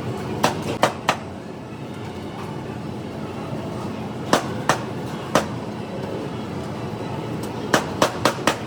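Steady background hubbub of a busy food court, with sharp clinks of tableware in small clusters: three near the start, three in the middle and four near the end.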